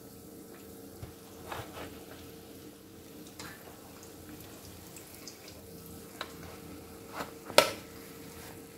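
Hot vegetable oil softly sizzling and bubbling in a deep pan as egg rolls are lifted out with a wire spider skimmer, with a faint steady hum underneath. A few light clicks and taps of the skimmer, the sharpest near the end.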